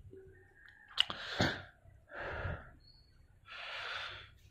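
A man breathing audibly close to the microphone: three breaths, the first starting with a small click and the last the longest.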